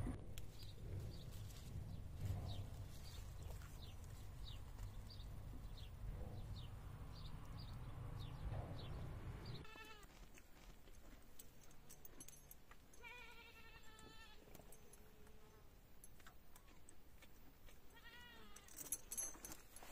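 A goat bleating three times in the second half: a short call, then a longer quavering one, then a short one again.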